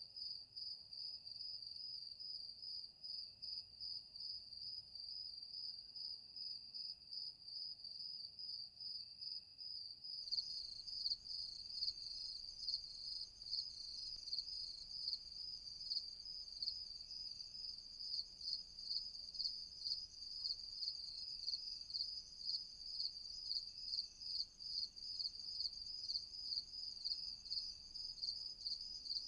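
Night crickets chirping in a steady, fast-pulsing high trill, with fainter single chirps repeating every second or two. About ten seconds in, a second, higher-pitched cricket chorus joins and the sound gets louder.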